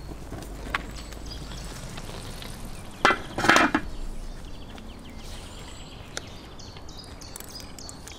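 Eggs frying in a wide metal pan with a steady sizzle; about three seconds in, two loud clanks as the pan's metal lid is set down on it.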